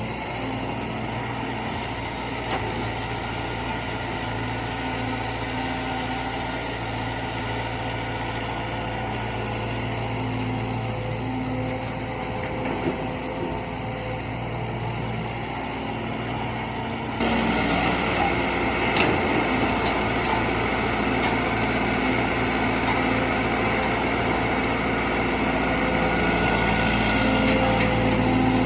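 Diesel engines of heavy construction machinery running steadily; about two-thirds of the way through the sound jumps abruptly louder and busier.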